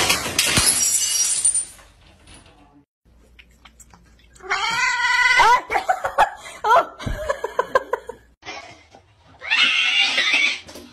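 Things clattering down onto a hard floor in the first two seconds, then a domestic cat yowling in a run of long, wavering cries. Near the end comes a short hiss, as a cat squares up to its reflection in a mirror.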